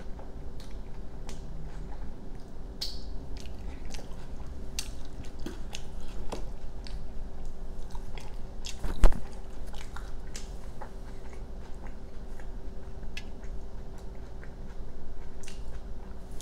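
Close-miked chewing of a mouthful of burrito with lettuce in a flour tortilla, with wet mouth clicks and soft crunches scattered throughout. One sharper click about nine seconds in stands out as the loudest. A faint steady hum runs underneath.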